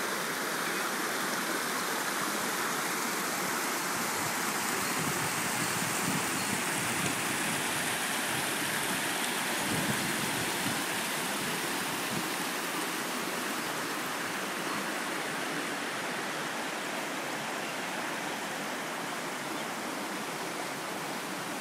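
Mountain valley stream rushing over rocks: a steady, unbroken rush of water.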